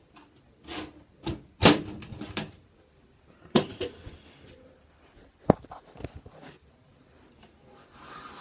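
Knocks and clatters of a PC case and its side panel being handled, the loudest about a second and a half in, with lighter rubbing and scraping between.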